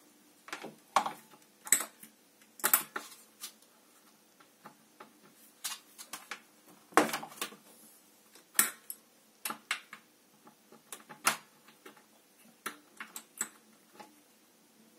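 Irregular metallic clicks and clinks of nuts and a tool being worked on the heating-element flange of an Atlantic 50-litre electric water heater, with a few sharper clanks louder than the rest.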